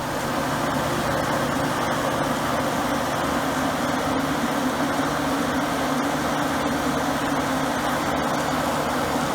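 Sukup grain dryer's fan and burner running, a steady, unbroken drone of rushing air with a low hum underneath.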